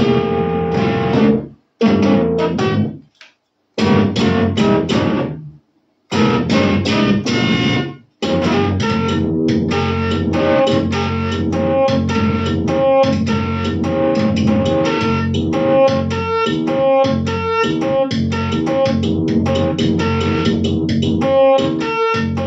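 Yamaha DX7 FM synthesizer played with a plucked, guitar-like sound. A few short chord phrases come first, broken by brief pauses; from about eight seconds in, the quick notes run on without a break.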